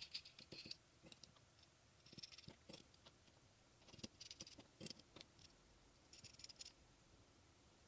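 Light metallic clicks and clinks from the small steel parts of a hand-held jig, bolts, wing nuts and plates, as they are fitted and threaded together by hand, coming in four short clusters.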